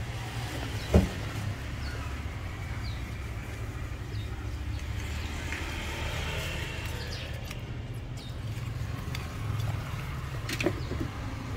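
Small clicks and taps as a screwdriver pries a handheld two-way radio's circuit board out of its die-cast metal chassis, with a louder click near the end. A sharp knock about a second in, over a steady low hum.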